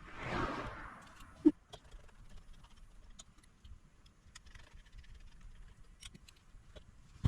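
Handling noises as a portable power station is reassembled: a brief rustle, then one sharp clack about a second and a half in, with light clicks of small parts and a final click near the end.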